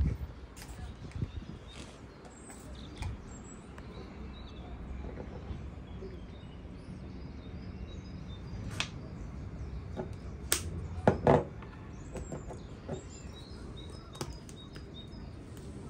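Household objects being handled: a few sharp clicks and knocks, the loudest cluster about eleven seconds in, over faint bird chirping.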